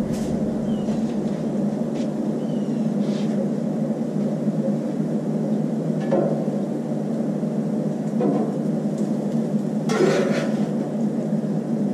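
A metal spatula scraping and clinking on the steel top of a Blackstone griddle in a few short strokes, the longest near the end, over a steady low hum.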